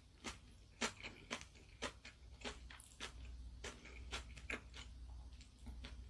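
Quiet, close-miked eating sounds over a bowl of ramyeon: irregular sharp wet clicks, roughly two a second, as noodles are gathered onto a wooden spoon with wooden chopsticks.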